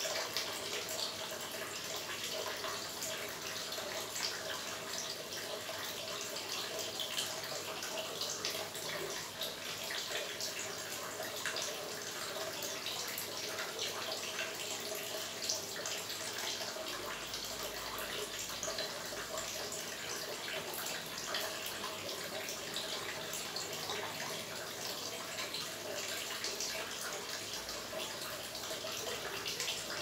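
Small water fountain splashing and trickling into a shallow pond: steady running water with many small drips and splashes.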